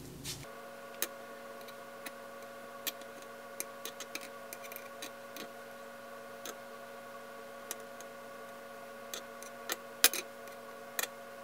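Scattered light clicks and taps of metal tongs against a frying pan and a wooden board as pieces of food are lifted and laid down, a few sharper ones about ten seconds in. Under them runs a steady hum made of several fixed tones.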